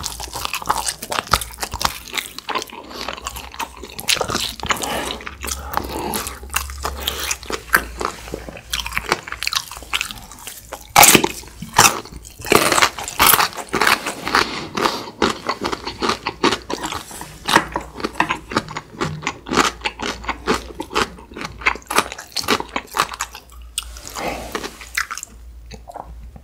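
Close-miked eating sounds: a person biting and tearing braised beef off a galbitang rib bone and chewing it, a dense irregular run of sharp, clicky mouth sounds. They are loudest a little before the middle and thin out near the end.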